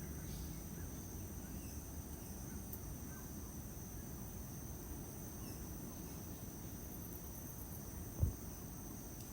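Rainforest ambience: a steady high-pitched insect drone with a low rumble of wind, and a few faint bird chirps. About eight seconds in there is a single brief low thump.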